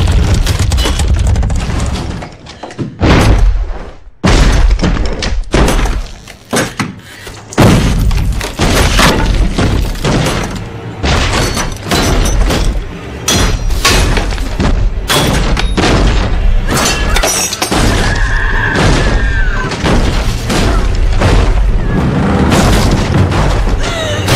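Repeated heavy thuds and bangs against a bolted door, its bolt, screws and hinges straining under the blows, over a loud, tense film score.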